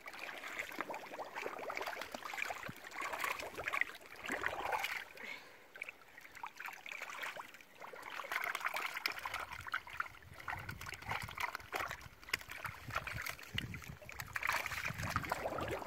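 Feet and hands sloshing and splashing in shallow muddy water, with small wet clicks, coming and going irregularly.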